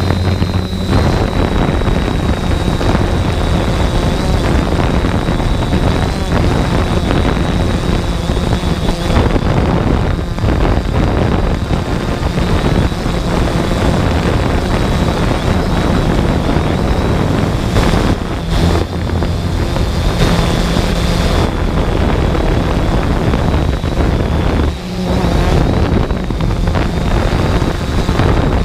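Multirotor drone's electric motors and propellers running steadily, a constant whine heard from its onboard camera, with wind rushing over the microphone.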